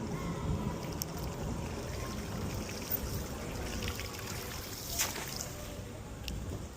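Water trickling and lapping, with a sharp click about a second in and another about five seconds in.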